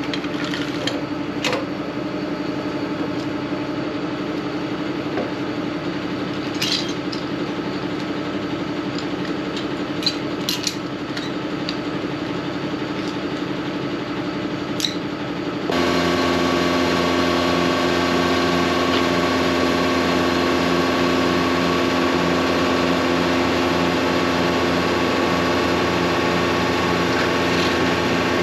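Vacuum pump of a DAF combination jetting and vacuum tanker lorry running steadily, with several sharp metal clanks as suction hose sections are coupled together. About halfway through the sound abruptly gets louder and settles into a new steady drone as the hose starts sucking out the flooded manhole.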